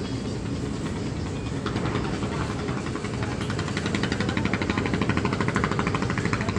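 Boat engine running steadily with a low drone, joined about two seconds in by a rapid, even clatter that grows louder and then stops near the end.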